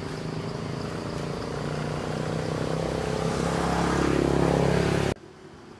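A motor vehicle's engine running and growing steadily louder as it draws near, then cutting off suddenly about five seconds in.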